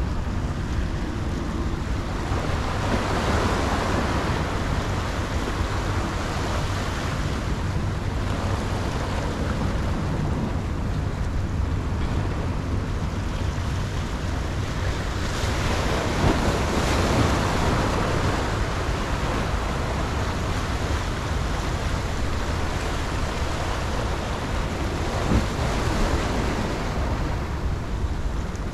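Ocean waves washing and foaming over the rocks of a jetty, swelling twice, a few seconds in and again around the middle, with a steady low rumble of wind on the microphone.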